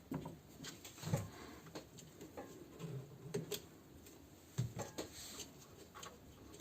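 Scattered clicks and light knocks of hands handling the plastic and metal parts of a washing machine's drum motor while taking out its carbon brushes, at irregular spacing with a few duller thuds.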